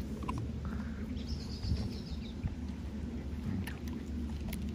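Steady low outdoor rumble with a short high bird trill a little over a second in, and scattered small clicks and licks of husky puppies taking treats from a hand.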